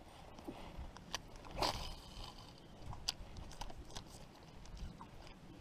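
Faint, scattered clicks and light knocks of a spinning rod and reel being handled in a kayak, with a short rustle about one and a half seconds in.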